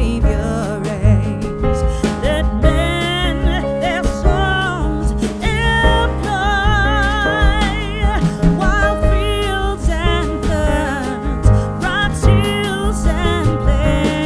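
A song: a singing voice holding notes with vibrato over instruments and a heavy bass line.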